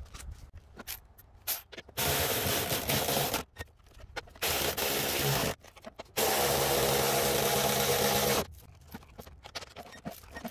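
A power wrench spinning a socket to run down the 15 mm nuts on a front strut's top mount, in three bursts of one to two seconds each, with light clicks of the socket and nuts in between.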